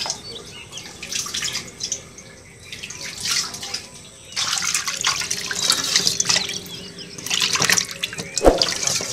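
Rustling and crackling of a cast net, dry leaves and plastic litter being handled on mud as fish are picked out of the net. It comes in irregular bursts with short pauses, and there is one sharp click near the end.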